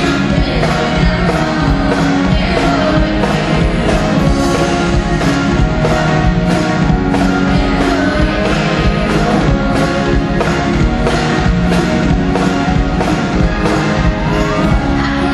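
A live band plays upbeat music: drum kit keeping a steady beat, accordion, with a singing voice over it.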